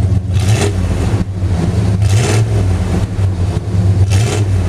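A Ford 351 high-output V8 running at the tailpipe of a single straight exhaust through a MagnaFlow muffler: a steady low rumble. Three short bursts of rushing noise come about two seconds apart.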